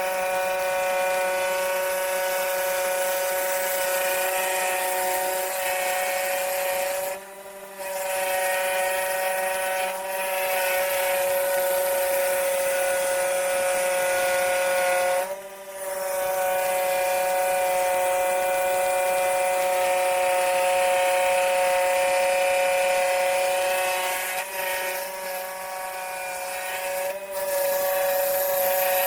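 Scroll saw running steadily with an even, pitched hum, its blade cutting wood. The sound drops out briefly a couple of times.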